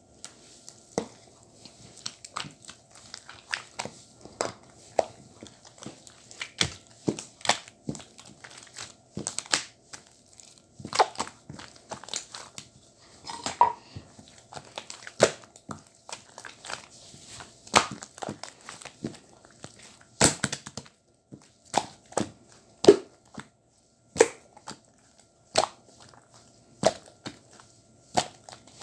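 Crinkling and crushing sounds: sharp, irregular crackles, about one or two a second.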